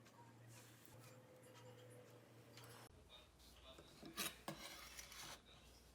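Faint scraping and clicking of kitchen utensils over quiet room tone, with a cluster of sharper clicks and scrapes about four seconds in.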